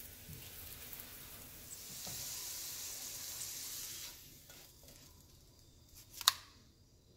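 Corn tortilla sizzling in a skillet of hot oil. The sizzle swells about two seconds in, then dies away as the tortilla is lifted out. A single sharp clink near the end, as the tongs set it down on the metal sheet pan.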